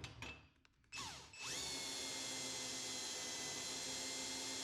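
Electric drill starting up about a second and a half in, its pitch rising quickly, then running at a steady speed while drilling out parts of a metal toolbox.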